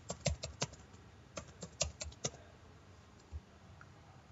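Keystrokes on a computer keyboard as a short password is typed and then typed again to confirm it. There is a quick run of about five key clicks, a pause of under a second, another run of about five, and one more click near the end.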